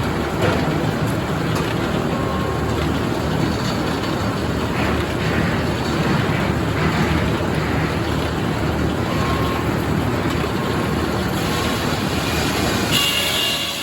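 Portable band sawmill running steadily under power, with its engine and blade making a loud, even machine noise. About a second before the end the sound changes and a higher whine comes in.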